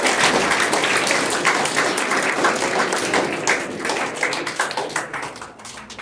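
Audience applauding, many people clapping at once, the clapping thinning out and dying away near the end.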